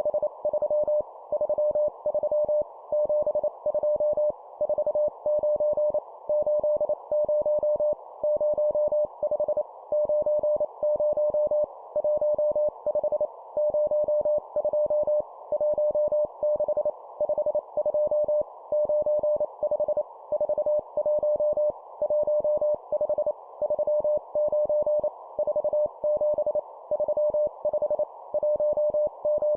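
Morse code (CW) sent at 25 words per minute: a single steady tone near 600 Hz keyed in rapid dots and dashes, in short groups of numbers with brief pauses between them, over a constant band of noise like a receiver's filtered hiss.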